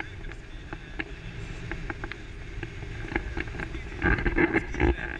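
Wind rushing and buffeting over the camera microphone in tandem paraglider flight: a steady low rumble with scattered clicks, louder for about a second near the end.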